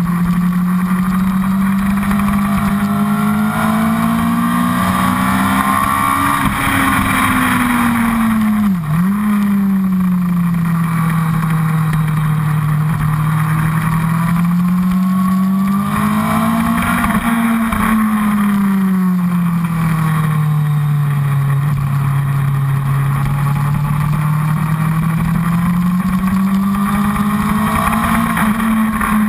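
Honda CBR1000RR's inline-four engine running at high revs, its pitch rising and falling in long sweeps as the rider goes on and off the throttle around the track, with a brief sharp dip about nine seconds in. Wind rush on the tank-mounted microphone runs underneath.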